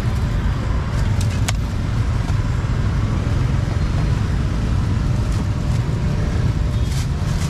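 Outdoor street ambience: a steady low rumble of road traffic, with a few short sharp clicks about a second and a half in and again near the end.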